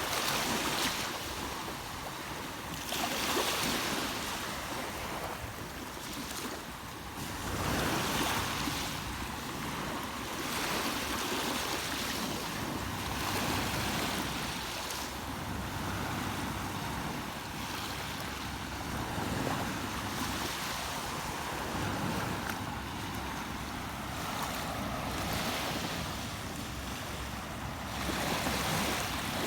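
River water rushing over rocks: a steady hiss that swells and eases every few seconds.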